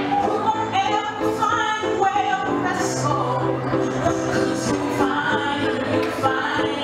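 A woman singing while accompanying herself on an upright piano: held, gliding vocal lines over sustained piano chords.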